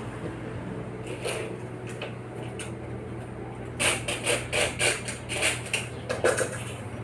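Light clicks and taps of hands working on an aluminum screen door, with a quick run of them about four seconds in, over a steady low hum.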